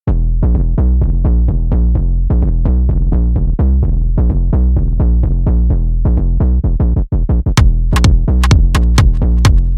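Electronic dance music with a fast, steady drum-machine beat, starting suddenly. About seven and a half seconds in, crisp high hits join the beat.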